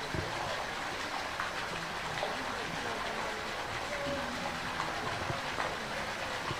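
Steady rush of running water in a zoo polar bear enclosure's pool, with faint distant voices.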